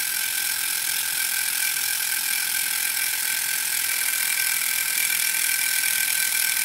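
Electromechanical six-digit counter of a vintage aircraft fatigue consumption indicator stepping rapidly and continuously, giving a steady ratcheting buzz. It is driven by a test signal near its upper limit of about 44 Hz.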